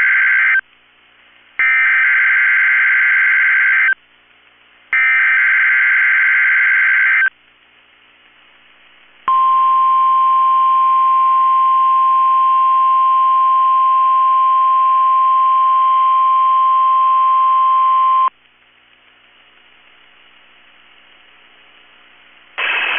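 NOAA Weather Radio Emergency Alert System test signal. The SAME header plays as three harsh bursts of digital data tones, each about two and a half seconds long with a second's gap between them; the first burst is already under way. About two seconds later the weather radio's 1050 Hz warning alarm tone sounds steadily for about nine seconds and cuts off abruptly, the signal that switches on weather alert radios, sent here as a required weekly test.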